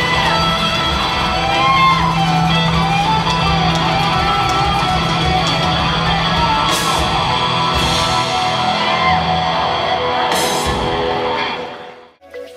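Live rock band playing, with electric guitar over the band and a few loud crashes; the song ends near the end, the sound dropping away to a brief lull.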